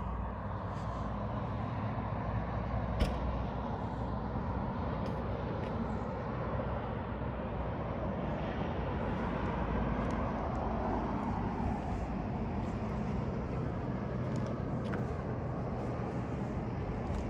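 Steady hum of road traffic from a highway below, swelling as a vehicle goes by about halfway through. A single sharp tap stands out about three seconds in.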